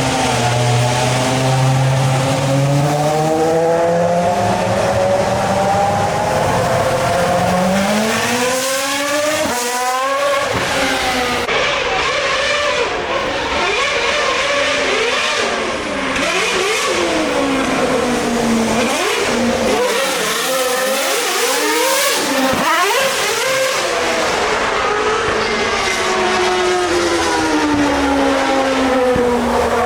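Formula 1 car's engine revving hard for a long spell, its pitch sweeping up and down again and again, as when the car is spun in donuts, with tyre squeal over it.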